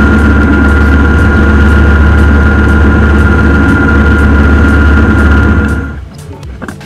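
Fishing boat's engine running steadily under way, a loud low drone with a steady high whine over it and the rush of the churning wake. It cuts off abruptly near the end.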